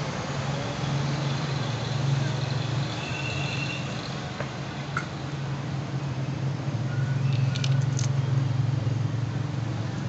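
A steady low motor hum runs in the background, with a few light clicks of small steel tools on the watch movement, about five seconds in and twice near eight seconds.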